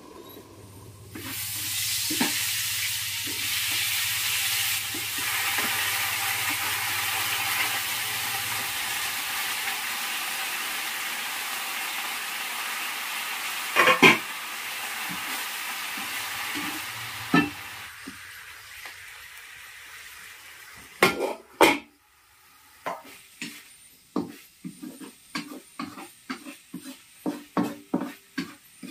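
Green vegetables sizzling loudly in hot oil in a wok over a wood fire, starting suddenly about a second in and dying down over the next quarter-minute. Then a wooden spatula stirs them with quick knocks and scrapes against the wok, about two a second.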